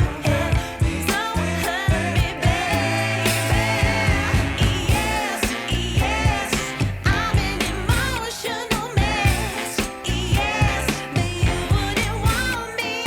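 Background pop song with a female-range singing voice over a steady beat and bass.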